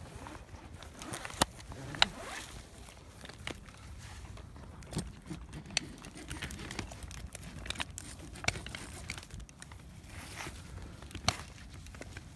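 A climber rappelling down a conifer trunk: irregular sharp knocks and scrapes of boots and gear against the bark, with the rustle of branches in between.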